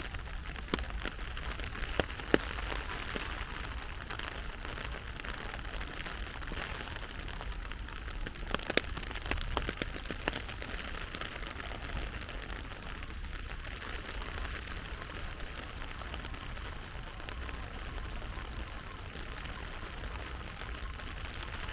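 Heavy rain falling steadily, a dense hiss with many individual drops ticking sharply close by, a few louder ones now and then.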